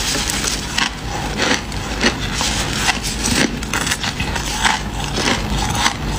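Freezer frost crunching as it is bitten and chewed close to the microphone: a steady run of irregular, crisp crunches.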